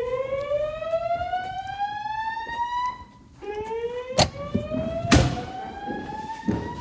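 System Sensor SpectrAlert Classic fire alarm speakers sounding the whoop alert tone of a voice evacuation system: two slow rising sweeps, each about three and a half seconds long with a short break between. Two sharp clicks cut in a second apart in the second half, the second louder.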